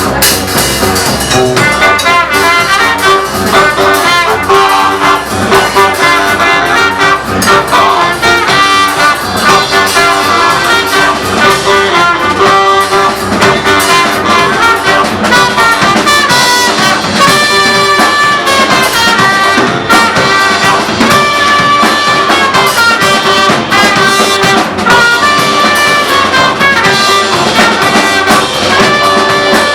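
Live band playing loud instrumental music, with held horn lines over a steady beat.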